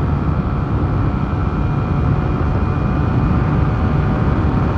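Honda Titan 150 single-cylinder four-stroke engine, bored out with a 190 kit and running an aftermarket 'estralador' exhaust, held at high revs at about 130 km/h, its top speed. The engine runs steadily under a continuous rush of wind.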